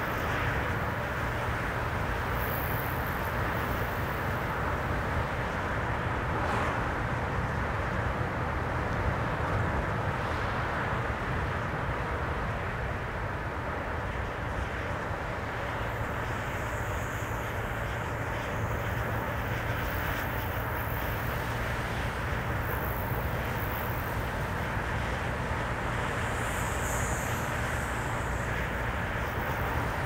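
A car driving at a steady speed: constant road and tyre noise with a low engine hum, unchanging throughout.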